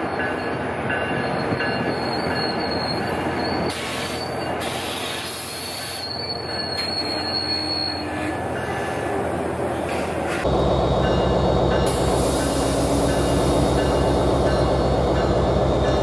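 NJ Transit passenger cars rolling past, their wheels squealing on curved track in two short stretches. About ten seconds in, a cut brings a louder, close PL42AC diesel locomotive running, with a deep, even throb.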